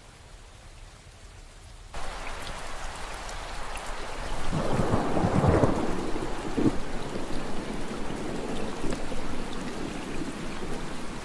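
Steady rain that suddenly becomes louder and denser about two seconds in, with a roll of thunder rumbling a few seconds later.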